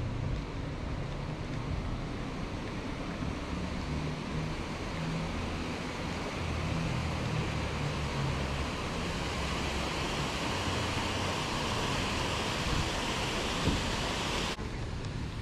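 Outdoor rushing noise with wind buffeting the microphone in irregular low rumbles. A hiss swells over the last few seconds, a single sharp click comes near the end, and then the sound changes abruptly.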